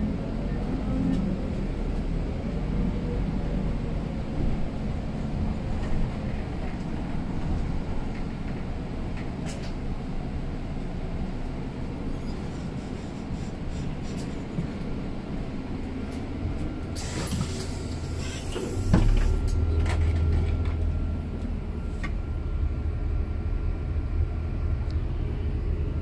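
MAN Lion's City city bus with a 4-speed Voith automatic, heard from the driver's cab while driving: a steady engine and road noise. At about 17 seconds there is a short burst of hiss. About 19 seconds in, the engine note gets deeper and louder as the bus pulls harder.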